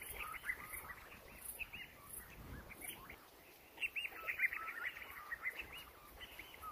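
A pack of African wild dogs twittering: many short, high, bird-like squeaky chirps come in quick clusters, with a brief lull about three seconds in. This is the excited chatter of a pack that has become active.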